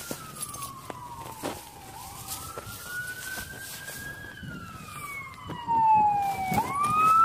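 An emergency vehicle siren wailing, its pitch slowly rising and falling about every four seconds, and much louder for the last second and a half. Footsteps in dry grass and sand underneath.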